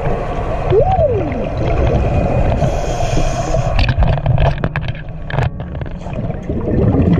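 Underwater rumble and rush of water and scuba bubbles around a shark cage, with a brief rising-and-falling whine about a second in and several sharp knocks in the second half.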